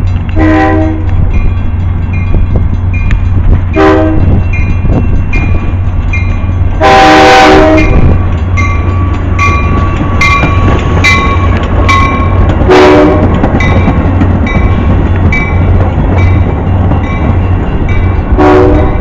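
Metra commuter train arriving, with its horn sounding five blasts: short ones near the start, about four seconds in, about thirteen seconds in and near the end, and a long one about seven seconds in. A grade-crossing bell dings about twice a second over the steady rumble of the passing train.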